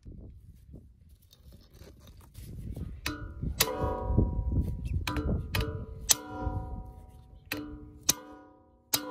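Hammer blows on a manual impact driver set in a stuck brake dust shield screw on a Honda Civic front spindle, the screw being shocked loose a little with each hit. About eight sharp metallic strikes, often in pairs, begin about three seconds in, and each leaves the steel ringing. A low rumble sits underneath in the first part.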